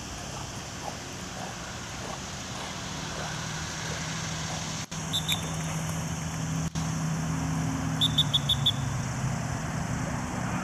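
Steady outdoor background noise with a low hum that grows stronger partway through, and a quick run of five short high chirps about eight seconds in.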